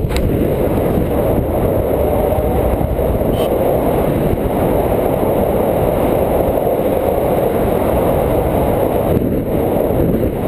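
Airflow buffeting the microphone of a camera carried in free flight: a steady, loud rushing noise with no break.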